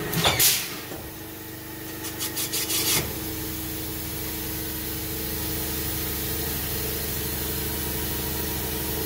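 Cylinder boring machine cutting a 45-degree chamfer into the top edge of a cast-iron Ford Windsor cylinder bore. There is a short scraping cut about half a second in and a rapid series of scrapes around two to three seconds in. After that the machine runs on with a steady hum.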